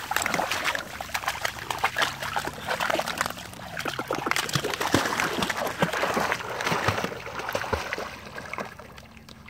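A dog splashing and wading through shallow water and reeds, then swimming out into the pond, the splashing dying away near the end.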